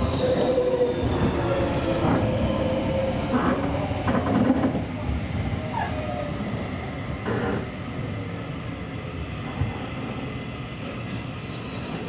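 Seibu Railway electric train running on the rails: a steady rumble with a thin whine that drops slightly in pitch, a few clicks, and the noise easing off gradually.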